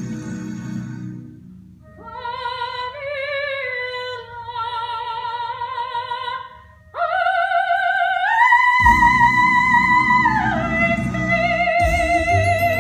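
A woman singing in a classical, operatic style with wide vibrato over accompaniment. A phrase of held notes breaks off about seven seconds in, then a long high note steps up once, is held, and drops to a lower sustained note near the end.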